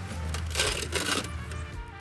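A beer can hisses and fizzes briefly about half a second in, over background music with a steady bass line.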